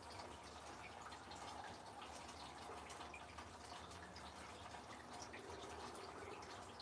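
Rain dripping: many small, irregular drips over a faint, steady hiss of falling rain and wet snow.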